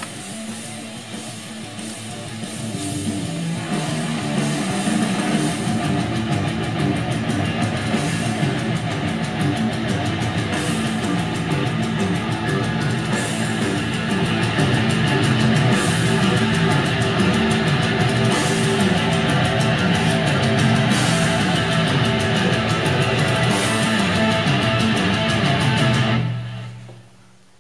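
Rock music with electric guitar played through a Fisher CA-272 stereo amplifier and its speakers. It gets louder about three seconds in and dies away quickly near the end.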